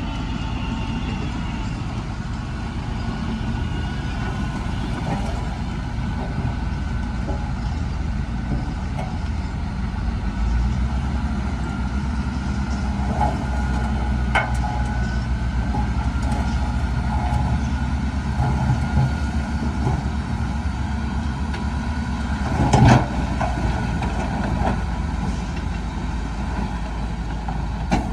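Heavy diesel engines of a bulldozer and dump trucks running steadily at a land-fill, with a single loud metallic bang late on.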